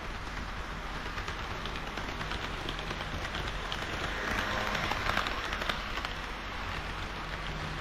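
HO-scale model train (KiHa 40/58 diesel railcar models) running on the layout track, a steady rolling rattle with fine clicks of wheels over rail joints, growing louder about halfway through as it passes closest, then easing.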